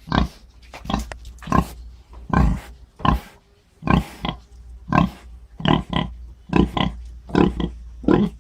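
A pig grunting over and over in short, rough grunts, one about every half second to a second, some coming in quick pairs.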